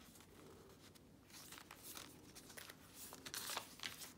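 Faint rustling and crinkling of paper as the pages of a small handmade journal are turned by hand, busier in the second half.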